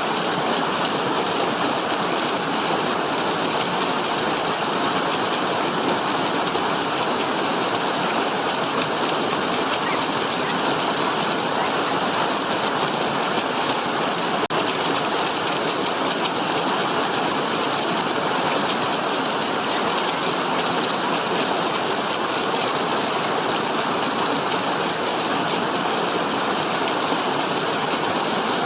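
Water rushing steadily in an even, unbroken hiss.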